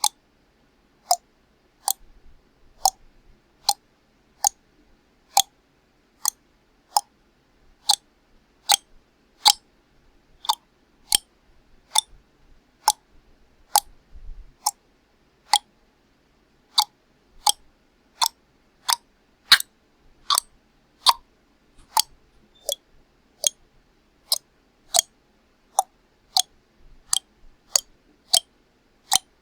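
Tongue clicks: a long series of single sharp clicks made with the tongue against the roof of the mouth, evenly spaced at a little more than one a second.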